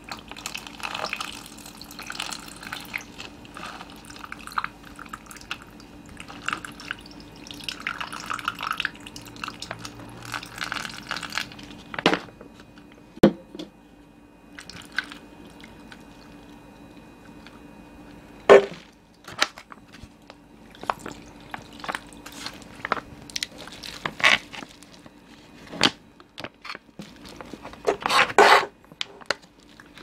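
Blue lemonade poured from a pouch over ice into a plastic cup, with the liquid running and dripping. After the first dozen seconds come several sharp knocks and clicks.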